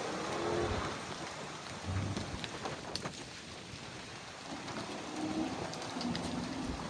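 Strong gusty wind rushing, with low rumbling buffets, loudest about two seconds in. This is the cold outflow wind along the gust front, ahead of a severe thunderstorm's rain band.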